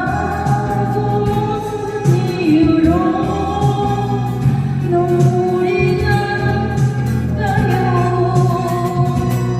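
A singer holding long, wavering notes of a slow Korean ballad over an instrumental accompaniment.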